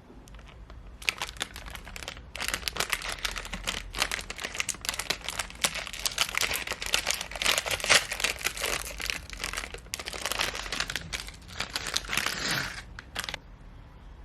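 Packaging being crinkled and torn open by hand: a dense, irregular crackle that starts about a second in and stops a little before the end.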